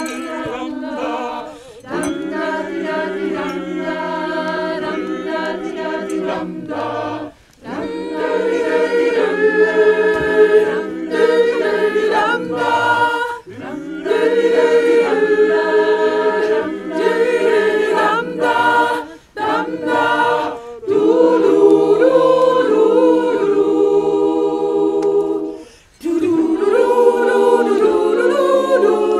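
Mixed choir singing a cappella in several parts, in sustained chords. The singing comes in phrases of about six seconds, each broken by a brief pause.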